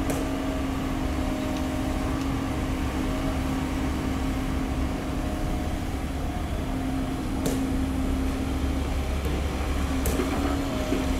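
Komatsu PC130 hydraulic excavator's diesel engine running steadily under load with a low rumble and a steady hum, as it digs soil and swings its bucket. A couple of short clicks about seven and a half and ten seconds in.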